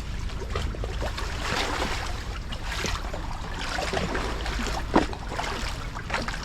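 Sea water splashing and lapping in an irregular pattern, with one sharper splash about five seconds in, over a steady low rumble.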